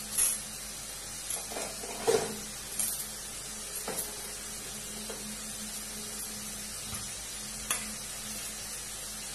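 Thick dry-fish and bamboo-shoot curry cooking down in a wok on the stove: a steady low sizzle broken by irregular sputtering pops, the loudest about two seconds in. The gravy is being reduced until nearly dry.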